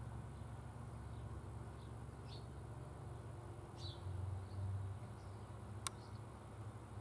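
Quiet rural outdoor ambience: a few faint, short bird chirps now and then over a low steady hum, with one sharp click about six seconds in.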